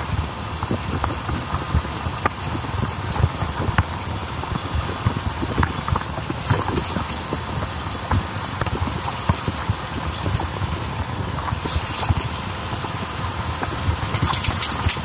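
Motorbike riding along a road, filmed on a phone held at the handlebar: engine and road noise with wind buffeting the microphone in irregular low thumps.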